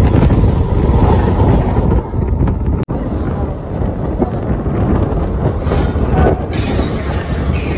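Begampura Express passenger train running on the track, heard from on board as a loud, steady rumble and rattle, with a momentary break about three seconds in.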